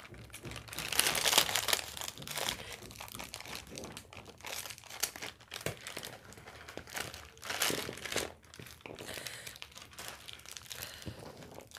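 A plastic snack packet crinkling as it is handled, torn open and shaken out, in irregular bursts that are loudest about a second in. Near the end comes the softer crinkle of a thin clear plastic sachet.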